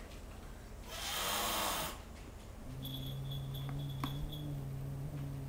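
A cat hissing sharply for about a second, then, after a short pause, a low, steady growl lasting several seconds: a cat threatening another.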